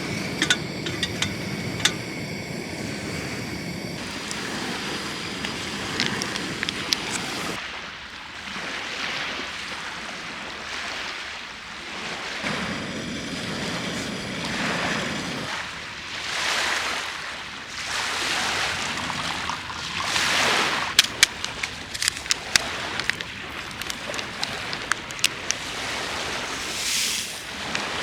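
Sea waves washing onto the shore, swelling and fading every few seconds, with scattered sharp clicks in the second half. The first several seconds are instead a low rumble with steady high tones, which changes abruptly about seven seconds in.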